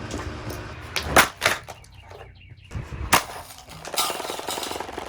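Several hard blows striking a Comfort Zone table fan: a quick cluster of impacts about a second in and another heavy hit about two seconds later.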